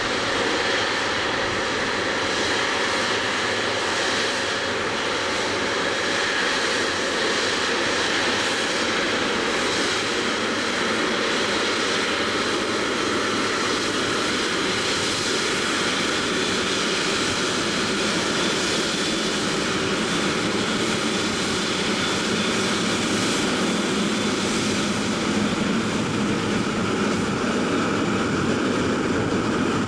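Etihad Airways Boeing 777 taxiing past, its twin GE90 jet engines running at low taxi thrust with a steady hum and faint whine.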